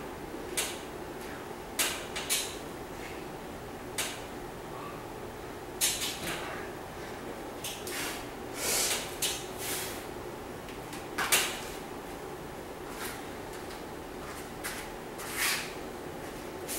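A freestanding metal pull-up station knocking and creaking as it takes the load of repeated pull-ups. The sharp clicks and short rasping bursts come irregularly, a second or two apart, over a steady low hum.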